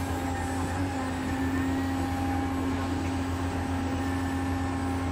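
Steady motor hum and whine of a radio-controlled model Hitachi Zaxis 360 excavator working its arm and bucket: a low hum with a few level, unchanging tones above it.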